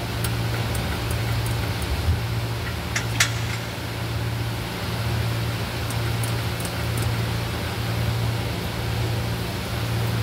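Steady low machine hum with a constant noise haze, like workshop ventilation or a running fan, broken by a few light metallic clicks and taps in the first few seconds and again about six seconds in.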